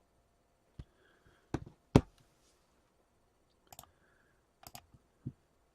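A handful of separate sharp clicks and taps over quiet room tone, irregularly spaced. The loudest comes about two seconds in.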